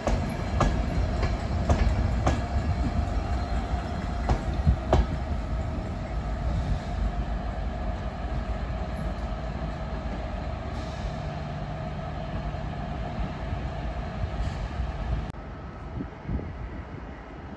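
Mark 4 passenger coaches rolling slowly past and away, wheels clicking over rail joints and points with a low rumble and a steady thin wheel squeal. The clicks come close together in the first five seconds, then the sound fades as the train draws off and drops abruptly about fifteen seconds in.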